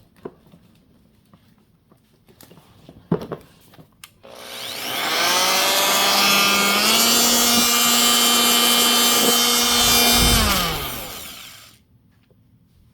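A Warrior 2-amp corded variable-speed oscillating multi-tool is switched on about four seconds in and spins up to a loud, steady whine. Its pitch steps up slightly about three seconds later, then it is switched off and winds down to a stop. A few faint handling clicks come before it starts.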